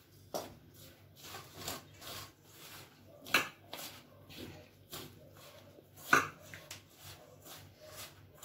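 A hand rubbing and squeezing a dry, crumbly flour mix with a little oil in a steel bowl: soft repeated rustling scrapes, two or three a second. Louder scrapes come about three seconds in and again about six seconds in. This is the stage of rubbing oil into the flour before water is added for the dough.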